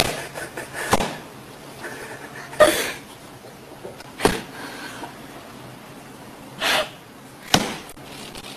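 Two cats sparring: a handful of sharp taps and knocks from paws striking a hard surface, spaced a second or more apart, with a couple of short breathy bursts between them.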